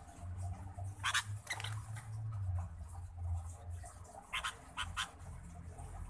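Birds pecking and scratching at grain on the aviary floor: a few short, sharp scratchy taps about a second in and a quick cluster of three near the end, over a low steady rumble.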